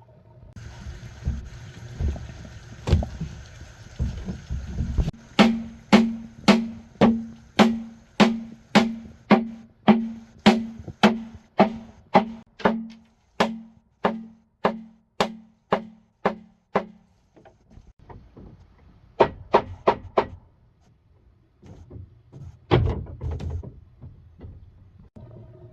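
Steady knocking, like a tool striking something hard: about two sharp, ringing knocks a second for some twelve seconds, after a few seconds of low rumbling. A handful of further knocks come near the end.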